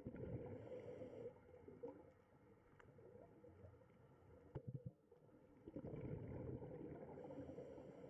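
Near silence: a faint low rumbling noise that swells near the start and again in the last third, with a couple of soft clicks around the middle.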